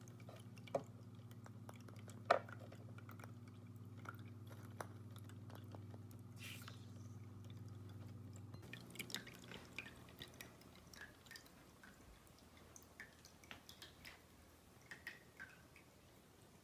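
Small electric tabletop water fountain: a faint low pump hum that cuts off about halfway through, with water dripping and trickling in small irregular drops and a few sharper clicks.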